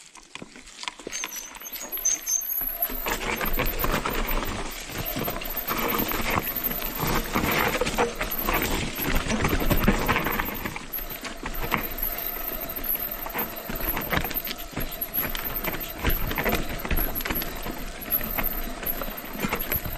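Mountain bike riding down a dirt and rock trail: tyres rolling and crunching over the ground, with a busy, irregular clatter of the bike rattling over bumps and a low rumble. It builds up over the first few seconds.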